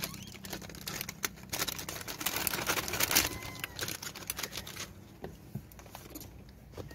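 Rapid, irregular clicking and tapping as rhesus macaques clamber over a car's windshield and bonnet, their hands and feet scrabbling on the glass and bodywork. The taps are thickest in the first few seconds and thin out after about five seconds.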